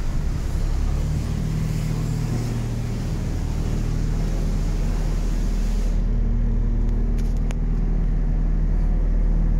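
An engine running steadily at idle, a low, even hum whose tone shifts slightly about six seconds in.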